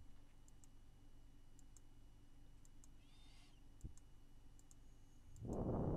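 Quiet room tone through a headset microphone: a steady low hum with faint scattered clicks and one sharper click a little before four seconds. Near the end a short, low hummed voice sound comes in.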